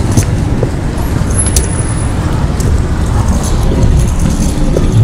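City street traffic: cars running past on the road, a steady low rumble.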